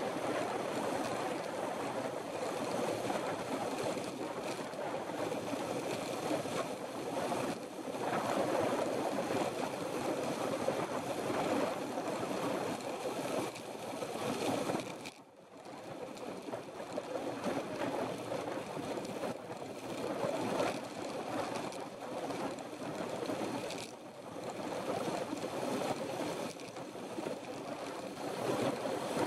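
Wind rushing over the microphone of a handlebar-mounted camera on a moving road bike, mixed with tyre noise on asphalt: a steady rush that dips briefly about halfway through.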